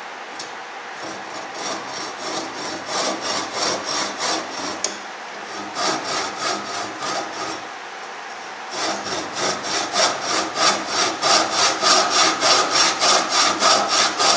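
Tenon saw cutting across the end of a pine blank in rhythmic back-and-forth strokes, sawing a shallow kerf along the diagonal. There is a short break about eight seconds in, then faster, louder strokes at about three a second.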